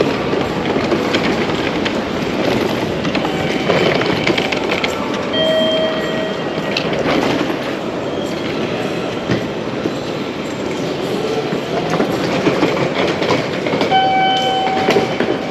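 Busy railway station concourse: a steady clattering rumble, with short electronic beeps about five seconds in and again near the end.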